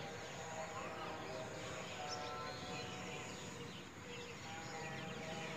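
Outdoor ambience with many birds chirping over a steady background noise.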